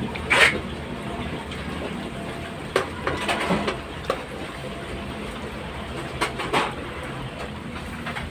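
Sheets of paper being handled, with short sharp rustles and flaps about half a second in, a few more around three to four seconds in and again past six seconds, the first the loudest. Under them runs a steady low machine hum.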